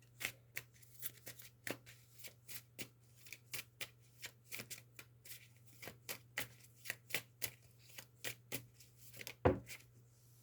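Tarot cards being shuffled by hand: a steady run of quick, crisp card snaps, about four a second, with one louder thump near the end.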